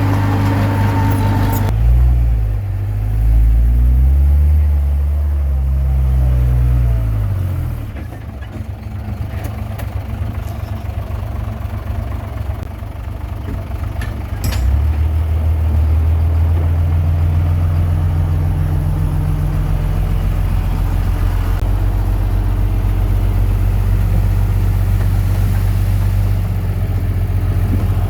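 Diesel engine of a Komatsu D21P bulldozer working. Its pitch rises and falls over the first several seconds, drops back for a while, then picks up again about halfway through and runs steadily under load.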